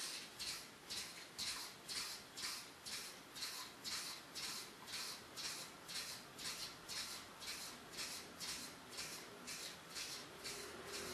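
Hair clipper blade slid back and forth under hand pressure on a flat sharpening block: a steady rhythm of scraping strokes, about two and a half a second. This is metal being ground down as the blade is lapped.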